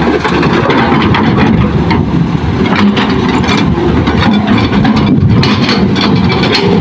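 Diesel engine of a Hitachi hydraulic excavator running steadily as it loads soil into a dump truck, with many short knocks over the engine.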